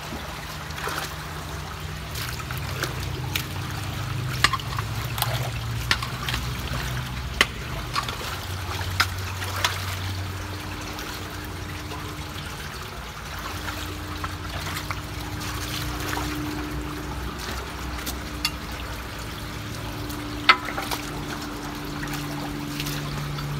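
Water trickling and flowing through a beaver dam clogging a culvert, broken by a dozen or so sharp clicks and knocks as debris is worked loose by hand and with a hoe.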